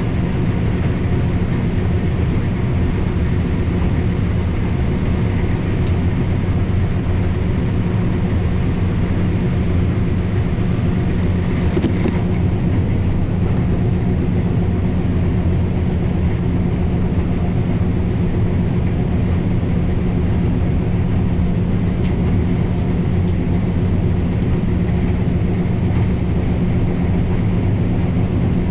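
John Deere S660 combine running steadily while harvesting soybeans: a constant engine and machinery drone with a low hum and no change in pace, with a faint tick about twelve seconds in.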